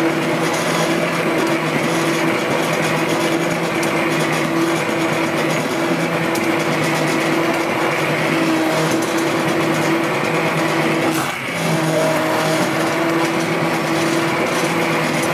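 Handheld immersion blender running steadily, its motor a constant hum, as the blade churns a pot of thick tomato and roasted red pepper soup. The sound dips briefly about eleven seconds in, then picks up again.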